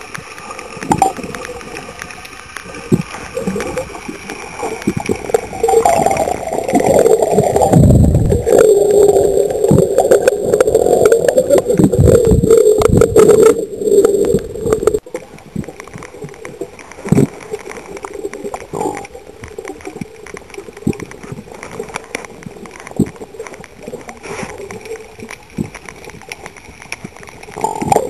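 Water gurgling and sloshing around the microphone, with irregular low thumps; for several seconds in the middle it swells into a louder, steady rushing that stops abruptly about halfway through.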